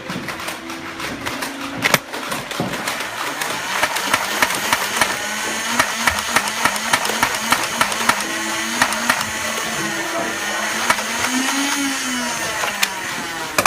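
Small electric motors whining with a wavering, rising-and-falling pitch over dense rapid clicking, typical of motorized flywheel Nerf blasters spinning up and firing foam darts.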